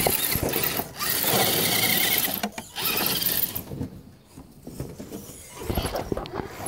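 Electric motor and geared drivetrain of an RC scale crawler whirring under throttle, then stopping about three and a half seconds in. A few light clicks and knocks follow near the end.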